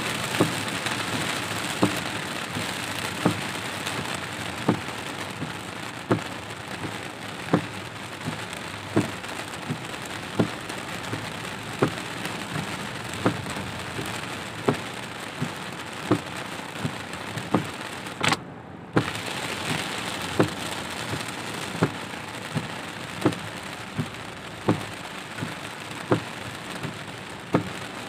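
Heavy rain drumming on a car's windshield and body, heard from inside the cabin, with the windshield wipers knocking at a steady beat about once every second and a half. The sound cuts out briefly about two-thirds of the way through.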